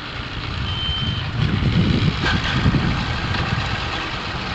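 Bass boat outboard motors idling and running at low speed, a low pulsing engine rumble that grows louder about a second and a half in.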